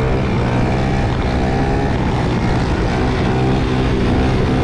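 Moped engine running at a steady cruise, a continuous drone heard from the rider's own bike, with wind and road noise rushing past.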